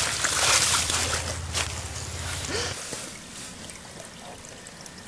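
A firecracker bang at the very start, followed by about a second and a half of hissing, crackling noise as dirt and debris are thrown and fall, one more sharp pop, then fading to faint scattered ticks.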